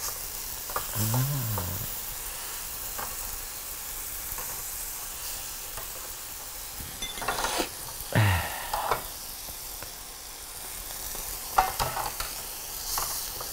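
Pork chops sizzling steadily on a tabletop grill pan, with a few clicks and snips as kitchen scissors cut the hard fat rim off the chops and metal tongs touch the grill.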